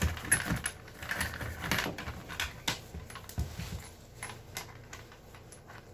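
Grip pliers working a stuck threaded plumbing fitting, giving short, irregular metal clicks, knocks and scrapes.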